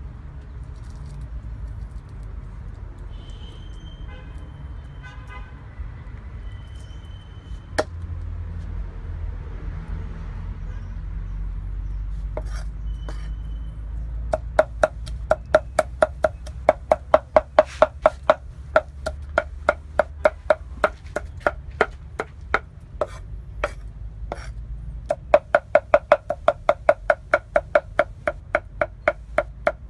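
Steel cleaver mincing garlic on a thick round wooden chopping board: rapid, even chops that begin about halfway through, pause briefly, then carry on.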